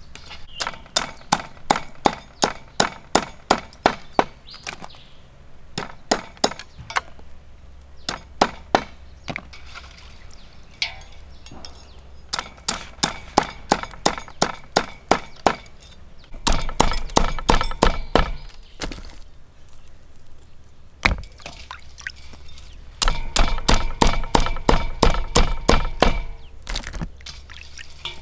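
Knife chopping ingredients on a wooden cutting board in runs of quick, sharp strikes, about three a second, with some light clinking.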